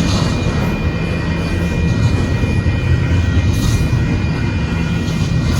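Freight train rolling past close by: a steady, loud rumble of the cars on the rails, with a faint high whine held throughout.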